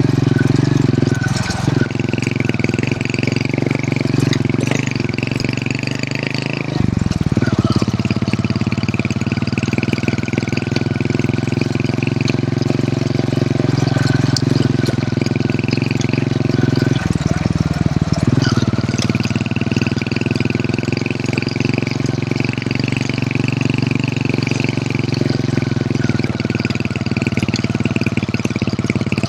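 Hero Honda CD100's small single-cylinder four-stroke engine running steadily under way, its note briefly changing twice, about seven and seventeen seconds in.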